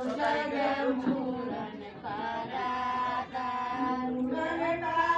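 A group of women singing together in long held phrases, with short breaks between phrases.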